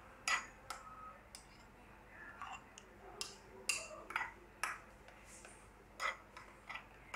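Metal spoon clicking and scraping against a ceramic plate while stirring mayonnaise and tomato ketchup together: faint, irregular light clicks.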